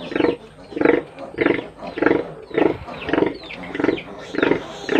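A nursing sow grunting in a steady rhythm, nearly two short grunts a second, as her newborn piglets suckle. This is the regular nursing grunt a sow gives during milk let-down.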